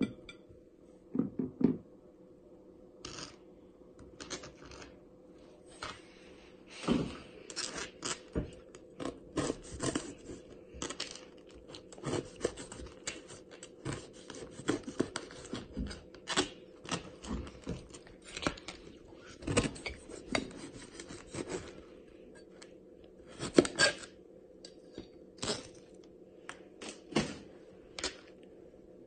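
Kitchen knife cutting through pineapple rind and flesh and knocking on a plastic cutting board: irregular cutting strokes and taps, with a faint steady hum underneath.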